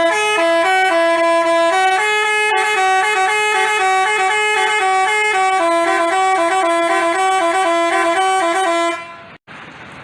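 Telolet musical bus horn (Basuri type) playing a quick tune in stepped notes, with a second line of notes joining about two and a half seconds in. The tune cuts off about nine seconds in, leaving a faint hiss.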